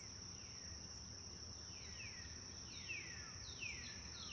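Outdoor nature ambience: a steady high-pitched insect trill with a series of falling whistled bird calls, about one a second, growing clearer from about two seconds in, over a low rumble of background noise.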